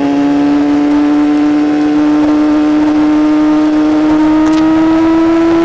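Yamaha YZF-R6 inline-four engine through a Shadux aftermarket exhaust, pulling steadily in gear with its pitch slowly rising.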